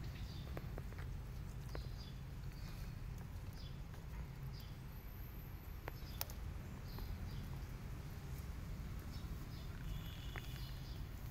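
Outdoor ambience: a steady low rumble with scattered faint clicks and rustles, and faint short chirps now and then.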